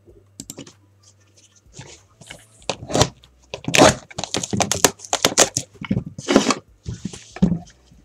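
Packaging of a sealed 2017 Bowman Chrome hobby box crinkling and tearing as it is opened by hand: a quick run of rough rips and rustles starting about two and a half seconds in and going on until near the end.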